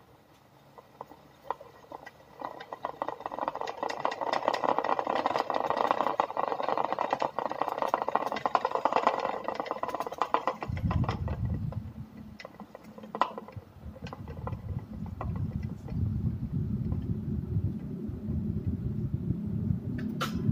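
A homemade plastic propeller, held in an electric stand fan's airflow, spins with a hissing whir and fine rattling ticks. About halfway through, this gives way to a low, steady rumble that runs to the end.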